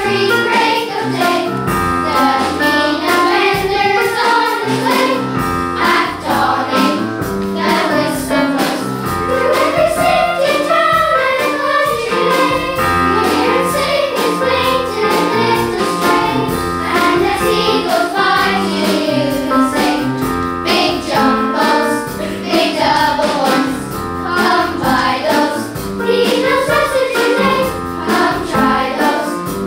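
Children's school choir singing a song together.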